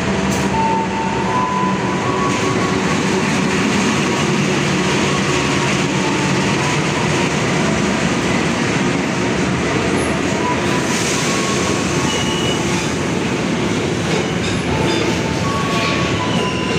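A diesel-electric freight train passes close by: the KAI locomotive and then a long string of freight wagons rolling through, a steady rumble of wheels on rail. Brief wheel squeals come now and then.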